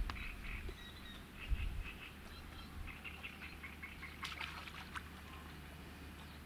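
Birds calling faintly in short, irregular chirping phrases, with a few light clicks.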